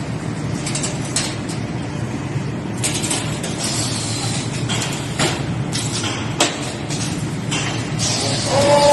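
A CNC wire bending and welding machine running: a steady low hum with repeated short hissing bursts and a few sharp clicks.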